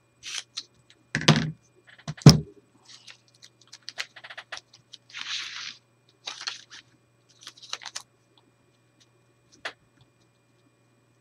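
Wide adhesive tape and paper pieces being handled on a craft table. Two thumps about a second apart near the start, then scattered crackly scrapes and clicks, with a short rasping rustle about five seconds in.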